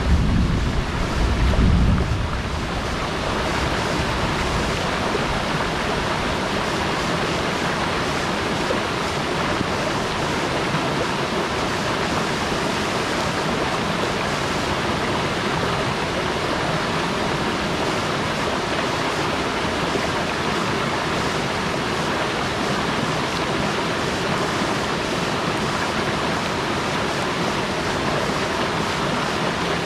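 Steady rush of a rocky rainforest stream cascading over boulders close by. Low wind buffets on the microphone in the first two seconds.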